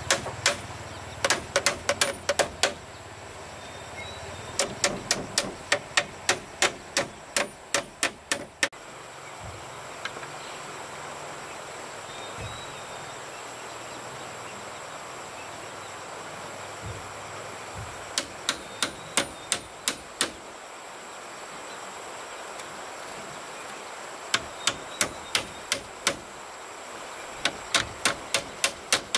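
Hammering in quick runs of sharp blows, about five a second, with pauses of several seconds between the runs. A steady high hiss sits in the background.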